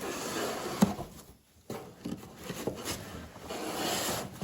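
Rustling and handling of a cardboard shipping box and its packing material, with a sharp knock about a second in and a short pause before the rummaging picks up again.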